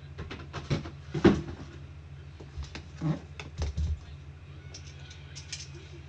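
Metal briefcase being handled and tilted: a series of irregular clicks and knocks from its shell and hardware, the loudest about a second in and lighter ones near the end, over a steady low hum.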